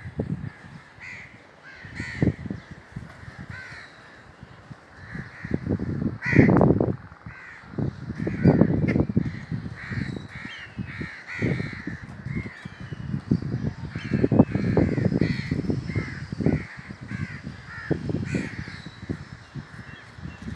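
Several crows cawing repeatedly, call after call, with loud bursts of low rumbling and thudding noise in between.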